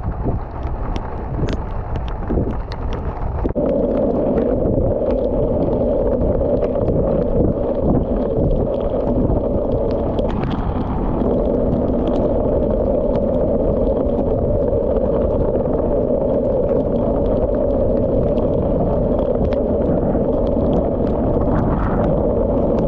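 Wind rushing over the microphone of a camera mounted on a wing-foiling wing while the rider is up and foiling, with a steady rushing hum setting in a few seconds in and breaking briefly near the middle. Scattered small ticks of water droplets hitting the camera housing.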